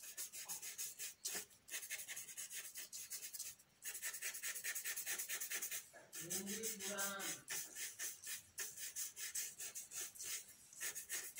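Graphite pencil shading on paper: quick back-and-forth scratchy strokes, several a second, in runs broken by short pauses.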